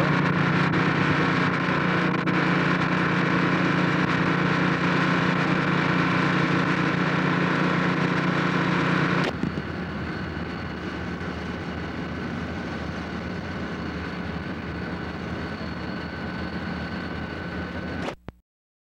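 Steady engine-like mechanical drone with a low hum, like machinery idling. About nine seconds in it cuts to a quieter drone with a faint high whine, which stops abruptly near the end.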